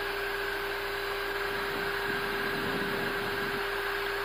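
Steady cockpit noise of an Airbus A320 on approach with the landing gear down: an even rush of airflow and air-conditioning, with a constant low hum and a fainter higher tone over it.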